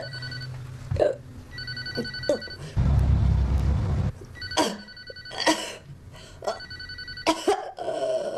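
Electronic telephone ringing: a multi-tone ring repeating about every two seconds, each ring about a second long, four times. Short sharp sounds fall between the rings, and a loud low rumbling noise lasts about a second about three seconds in.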